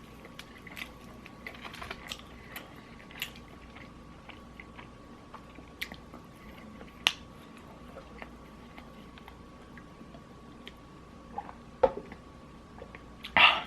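A person chewing and biting fried chicken close to the microphone: scattered small crunchy clicks, with a sharper click about seven seconds in and a few louder bites near the end.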